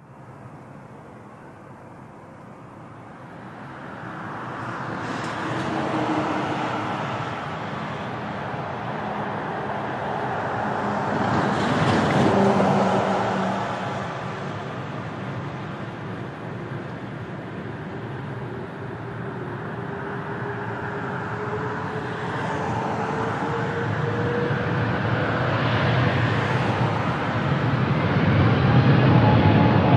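Airbus A380's four jet engines running at high power on the runway, a steady jet noise that swells louder about a third of the way in and again near the end. A faint whine rises slowly in pitch through the middle.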